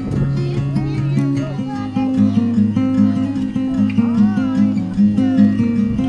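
Background music: acoustic guitar playing steady strummed and plucked chords.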